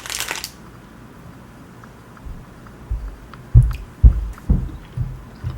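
Gummy fruit snacks being chewed close to the microphone: a run of low, dull thuds about twice a second that starts about two seconds in, after a brief crinkle of the wrapper at the start.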